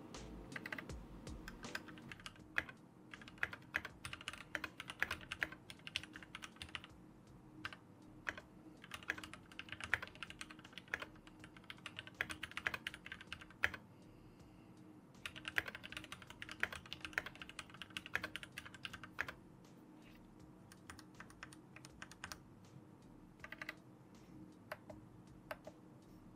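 Typing on a Keychron Q1 V2 aluminium mechanical keyboard fitted with Gateron G Pro Brown tactile switches: quick runs of key clicks broken by short pauses.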